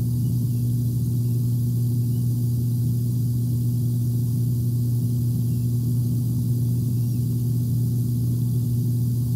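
A steady low hum at one fixed pitch with faint overtones, unchanging throughout.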